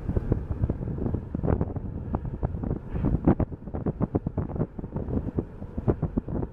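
Wind buffeting the camera microphone in uneven gusts: a low rumble with many short, irregular crackles.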